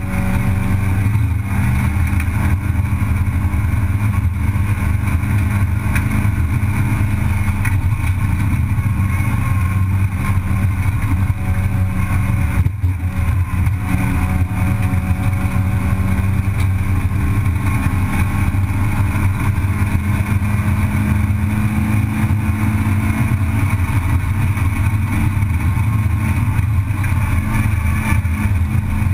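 Racing car's engine heard from inside the cockpit, running hard and steady on the circuit, its pitch sliding gently as the revs change, with one brief break in the sound about halfway through.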